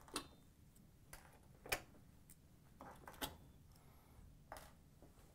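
A handful of faint, irregular metallic clicks and taps from needle-nose pliers working push-in gasket clips out of a sheet-metal oven door.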